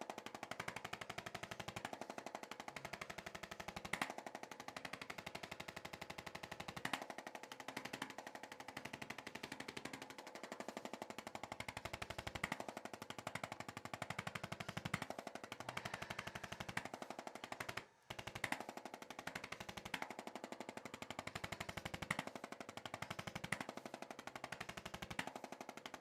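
Handheld percussive massage gun running against the body: a steady motor hum with very fast, even hammering, stopping for a split second about two-thirds of the way through.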